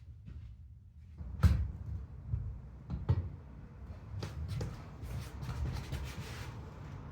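A series of knocks and clunks, the loudest about a second and a half in, followed by rustling and scraping.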